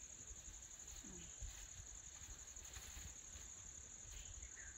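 Faint, steady, high-pitched chirring of insects, with a few faint soft knocks.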